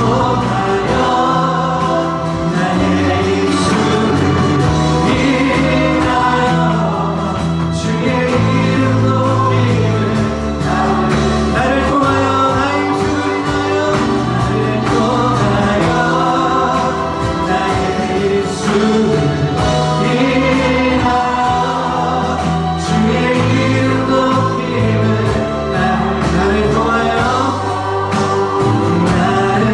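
Christian worship music: many voices singing a slow Korean praise song together over instrumental backing with held bass notes.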